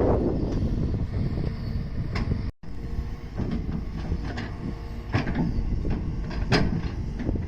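Hydraulic excavator running steadily, with several short, sharp metallic clanks and squeaks from the working bucket and boom. The sound drops out for an instant about two and a half seconds in.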